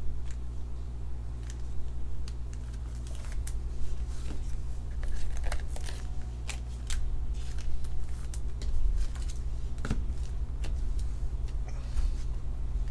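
Trading cards and plastic card holders being handled and set down on a table: scattered light clicks and rustles over a steady low hum.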